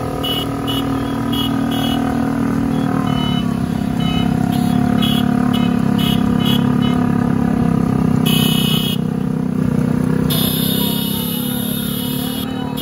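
Many motorcycle engines running together in a steady drone, with horns blaring about eight seconds in and again from about ten and a half seconds.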